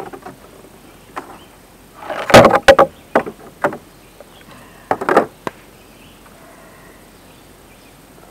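Hollow knocks and clatters of a hard plastic chainsaw carrying case and the chainsaw being handled. There is a loud cluster of knocks about two seconds in, a couple more soon after, and another short group around five seconds.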